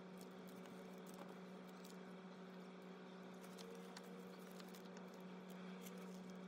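Faint rustling and soft scattered clicks of cardboard, paper photocards and a clear plastic binder sleeve being handled, over a steady low electrical hum.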